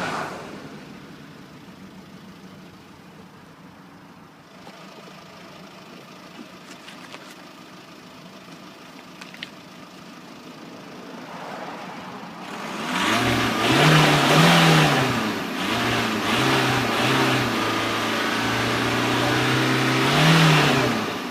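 Audi 2.0 TDI PD170 four-cylinder diesel engine running quietly at idle, then revved several times from about halfway through, its pitch rising and falling with each blip and held higher once near the end before dropping back. The owner reports that this engine smokes and gives off strong exhaust fumes.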